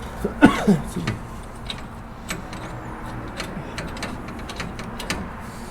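A short gliding vocal sound a little under a second in, then scattered light clicks and knocks from parts and tools being handled.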